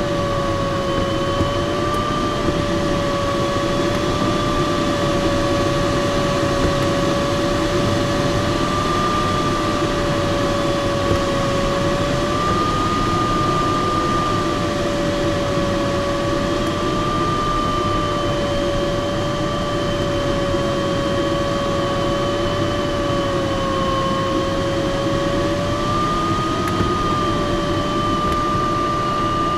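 Air rushing past the cockpit of a Glaser-Dirks DG-202 glider in flight, with a steady electronic tone, the variometer's audio, that slowly wavers up and down in pitch as the climb or sink rate changes.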